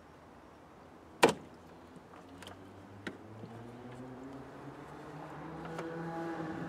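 A sharp snap about a second in as the plastic brake fluid reservoir is pulled free of the master cylinder's rubber grommets, followed by a few light plastic clicks. Behind it, a vehicle engine hum slowly rises in pitch and grows louder toward the end.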